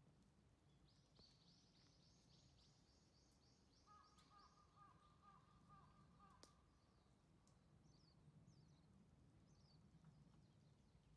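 Faint birdsong in a near-silent yard: a fast, high trill for a few seconds, then a lower repeated trill around the middle, followed by short high chirps.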